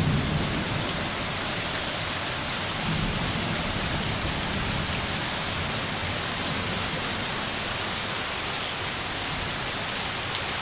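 Steady rain falling, an even hiss of drops, with a low rumble of thunder dying away in the first few seconds.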